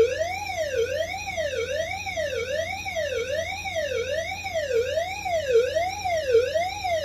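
Fire alarm speakers sounding a siren-like tone that sweeps smoothly up and down, about one rise and fall every 0.8 s: the signal that the suppression releasing system has been activated.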